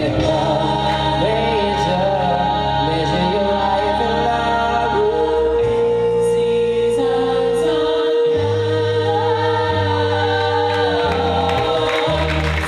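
A vocal group singing in harmony into microphones, with one long note held from about five seconds in until near the end.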